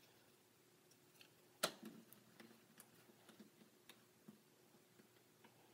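Small plastic clicks and taps from a plastic transforming robot figure being handled and its parts adjusted, with one sharp click about a second and a half in.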